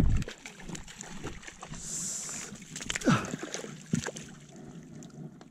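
Water splashing and sloshing as a hooked rainbow trout thrashes at the surface close to shore, mixed with scuffs and knocks of someone moving over the rocky bank.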